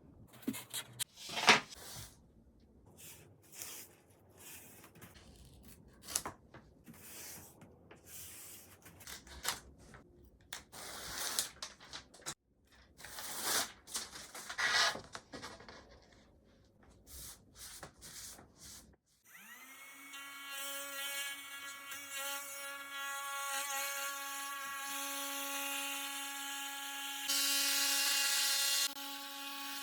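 Knocks, clicks and rubbing of wood being handled and set in place, then a trim router's small motor spins up about two-thirds of the way in and runs with a steady high whine. Near the end there is a louder, rougher stretch of about a second and a half as the bit bites.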